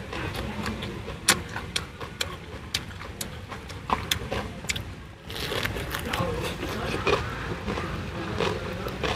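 Close-up eating sounds: chewing of fried tofu wrapped in perilla leaves, with irregular wet mouth clicks and lip smacks. From about five seconds in there is a denser rustle of leaves being handled and folded.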